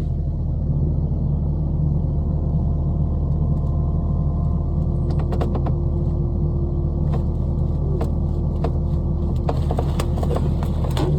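An engine running steadily with a low hum, with scattered light clicks and knocks from about five seconds in.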